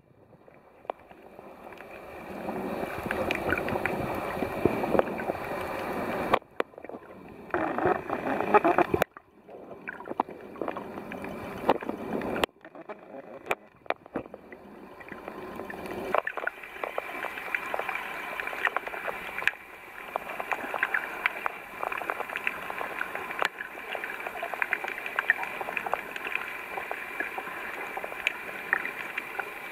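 Water sloshing and gurgling around a camera held at or just under the sea surface, with a scattering of sharp crackles and clicks. The sound drops out abruptly a few times in the first half.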